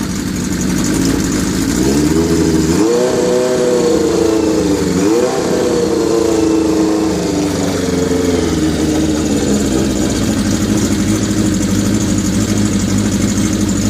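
1981 Kawasaki GPz550 inline-four running at a raised idle through a Yoshimura 4-into-1 exhaust, on its first run after a full restoration. Its engine speed climbs about two seconds in, dips, climbs again and then settles back to a steady fast idle.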